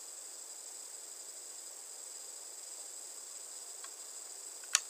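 Steady high-pitched electronic hiss of the recording's background noise, with one sharp computer mouse click near the end.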